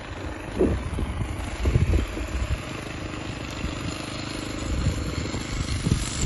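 Small two-stroke engine of a petrol string trimmer idling steadily, without cutting.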